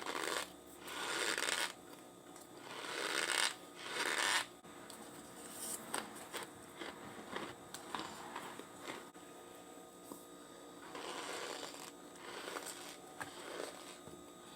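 Cornstarch being chewed, squeaking and crunching: four loud bursts in the first four seconds or so, then quieter chewing with scattered clicks.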